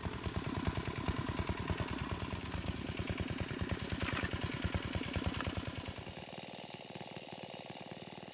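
A small engine running steadily with a fast, even low pulse; the low thumping drops away abruptly about six seconds in.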